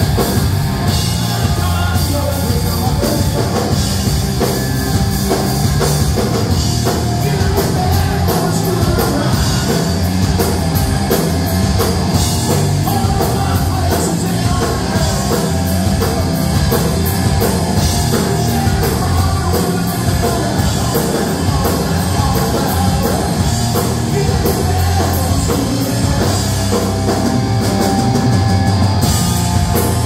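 Live rock band playing loud: electric guitar, bass guitar and a drum kit going at a steady beat.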